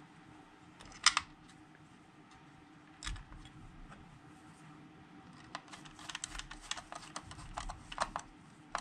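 Light clicks and taps of screws and the clock mechanism being handled against a hollow plastic Kit-Cat clock case: a sharp click about a second in, another near three seconds, then a run of small rattling clicks in the second half.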